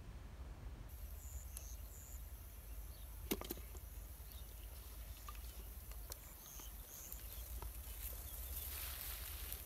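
Rural outdoor ambience: a steady high insect buzz with short, repeated high chirps over a low rumble, and a couple of sharp clicks about three seconds in.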